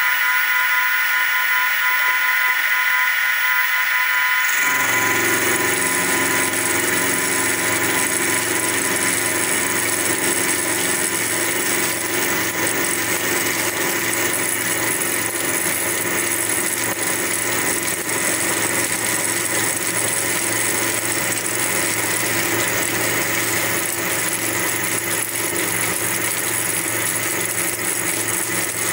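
Sieg SX2P mini-mill running, its end mill side-milling a metal bar: a steady machine whine made of several held tones. About four and a half seconds in the sound changes abruptly and a lower hum joins it.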